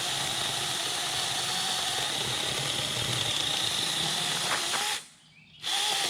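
Cordless 36-volt mini chainsaw with a 6-inch bar running with a steady whine as it cuts through a small tree about two inches thick. It stops about five seconds in, then starts again briefly near the end.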